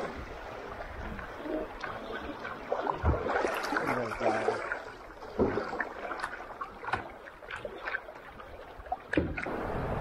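Rushing river water around a kayak running rocky rapids, broken by several sharp knocks and splashes.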